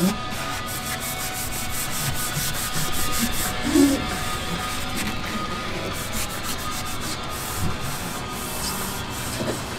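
Hands rubbing and pressing an adhesive-backed SeaDek EVA foam pad down onto a boat's hatch lid, a run of quick rubbing strokes, with a brief louder bump just before the middle.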